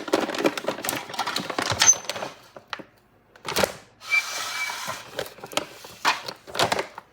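Rapid clicking and clattering of small kitchen items being handled, then a short soft hiss about four seconds in and a few separate knocks near the end.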